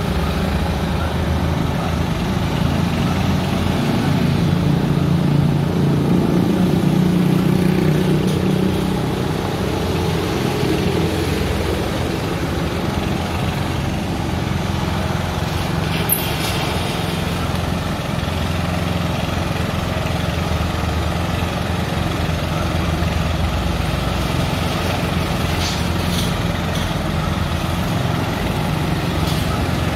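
Truck-mounted crane's engine running steadily while its boom lifts a steel truss arch, growing louder for a few seconds early in the lift. A single sharp click about halfway through.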